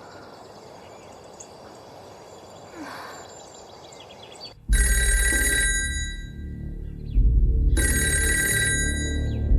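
Faint quiet ambience, then about halfway in an old-style electric telephone bell starts ringing abruptly and loudly: one ring of about a second, a pause, then a longer ring near the end, over a low, dark rumble of background music.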